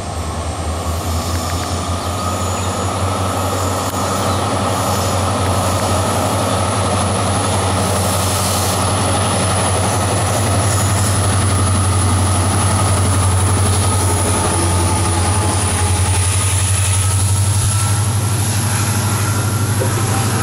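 WDP-4-series EMD diesel locomotive of an express train running past: a steady low engine drone with a whine over it, growing louder as it comes near, then the coaches rolling by.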